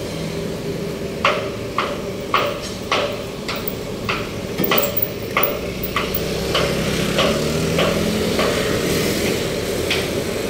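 Steady hammer strikes on metal at a construction site, a little under two a second, starting about a second in, over the hum of road traffic.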